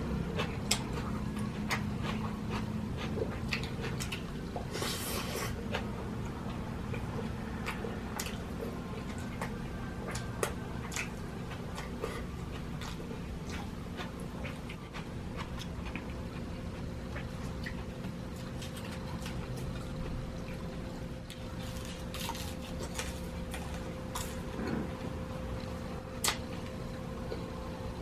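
Close-miked eating sounds: wet chewing and mouth smacks, with scattered small clicks of utensils on a plate, over a steady low hum.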